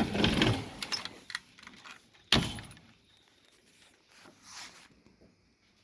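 Rattling and clinking handling noise, then a single sharp knock about two seconds in, after which it goes nearly quiet.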